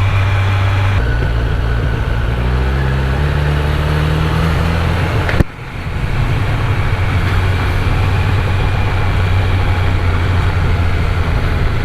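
Kawasaki Z900 inline-four motorcycle engine running under way, its pitch climbing in steps over the first few seconds. A sharp click and a brief drop in level come about five seconds in, then it settles into a steady drone over road and wind noise.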